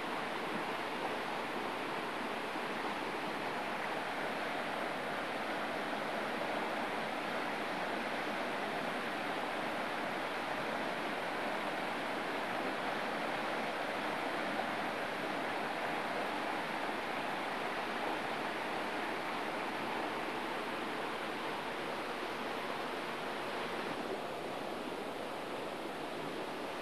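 Steady rush of flowing river water, an even noise with no distinct events, shifting slightly in tone near the end.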